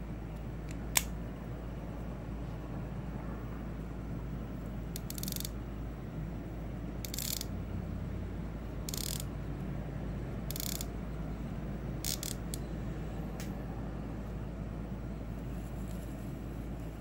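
Baitcasting reel's clicker chattering in short bursts as line is pulled off the spool, six or seven times a second or two apart, after one sharp click about a second in.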